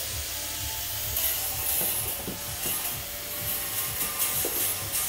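A plastic fender flare being handled and shifted against a vehicle's wheel arch: rubbing and scraping with scattered light knocks and clicks.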